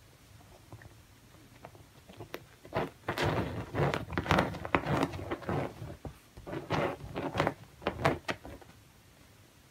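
A cat pawing and rubbing against a padded stool cushion: an irregular run of scratchy scuffs and soft knocks that starts a few seconds in and stops shortly before the end.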